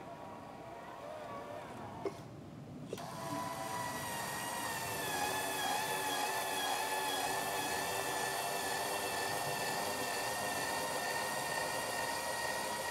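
Scratch-built 1/10-scale RC Euclid R18 dump truck grunting under a heavy gravel load. After two clicks about two and three seconds in, a steady electric motor whine starts and holds with a slight waver as the truck drives and tips its bed.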